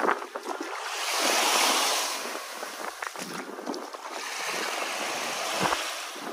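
Small sea waves washing onto the shore, swelling up about a second in and again near the middle, with a scatter of small clicks.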